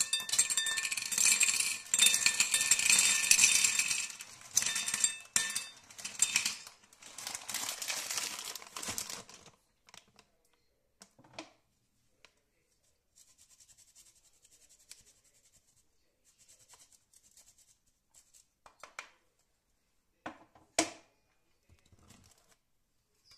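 Dry short tube pasta poured from a crumpled bag into a ceramic bowl: a loud, dense clatter of hard pieces hitting the bowl and each other, mixed with bag crinkling, for about nine seconds. Then come faint rustling and a few single clicks and knocks, one sharper knock near the end.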